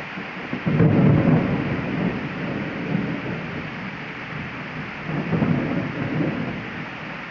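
Heavy rain falling with a steady hiss, with rolls of thunder: a loud low rumble about a second in that fades over a couple of seconds, and a second, softer roll around five seconds in.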